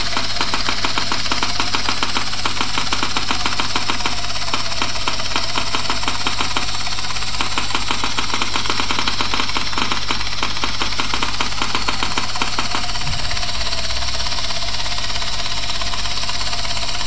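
A 3Shape TRIOS intraoral scanning system clicks rapidly and evenly over a steady low hum, the clicking that signals the scanner is capturing tooth surfaces as it moves along the arch.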